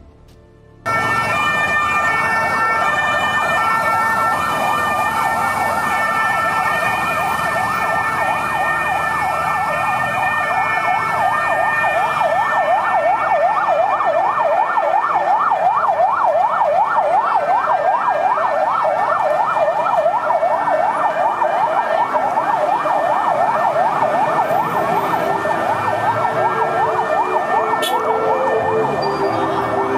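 Several vehicle sirens sounding together, starting abruptly about a second in: a fast yelp with slower rising-and-falling wails over it, from a police convoy of pickup trucks.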